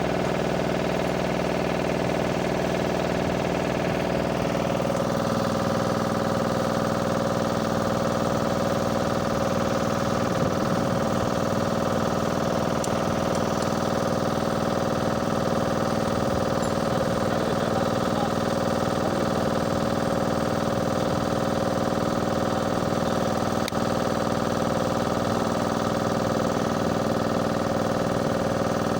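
An engine running steadily at a constant speed, with a small change in its tone about five seconds in.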